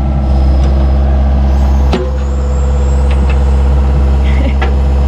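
An engine running steadily at an even speed, with a single sharp knock about two seconds in.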